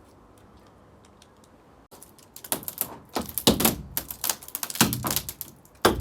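Cellular polycarbonate greenhouse panel being cut and bent along a scored seam: a dense run of sharp clicks and cracks in quick succession, starting about two seconds in after a faint stretch.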